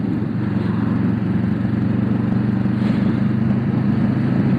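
Motorcycle engine running at a steady pitch while riding at an even speed, under a constant rush of road and air noise.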